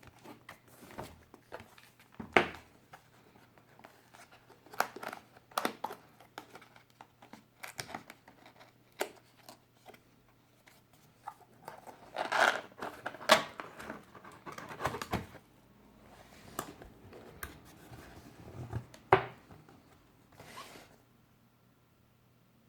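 Unboxing handling sounds: packaging rustling, crinkling and sliding, broken by irregular sharp taps and knocks, with a busier stretch of rustling about halfway through.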